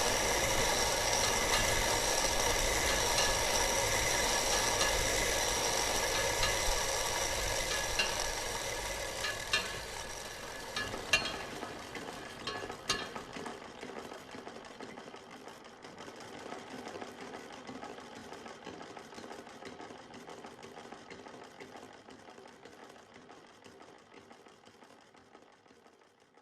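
Hand-cranked iron rope-spinning wheel turning, twisting hemp into thread, a steady mechanical whir with a few clicks. It fades slowly away over the second half.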